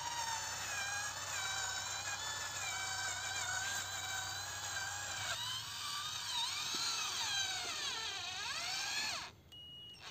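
Electric drive motor and gearbox of a homemade remote-control toy tractor whining as it drives. The pitch dips and rises several times in the second half as the tractor works up a slope under load. The sound cuts off suddenly near the end.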